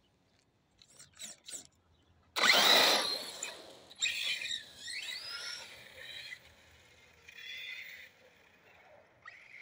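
Arrma Kraton RC monster truck's brushless electric motor whining in bursts of hard throttle, the pitch rising as it speeds up, with tyre noise on asphalt. The loudest burst comes about two and a half seconds in, and the later bursts are weaker as the truck gets farther away.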